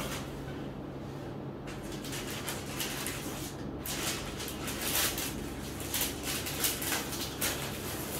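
Cardboard gift box and the paper wrapping inside rustling and crinkling as hands open the lid and sort through the packing, in short irregular scratchy bursts that start about two seconds in and grow busier, over a steady low hum.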